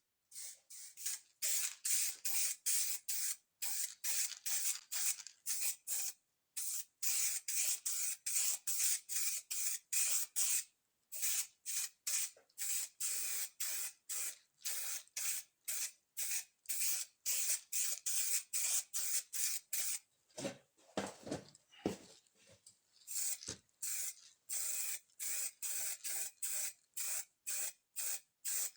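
Aerosol spray can of paint or primer hissing in many short repeated bursts, about one to two a second, with silent gaps between. There is a brief patch of low knocks about two-thirds of the way through.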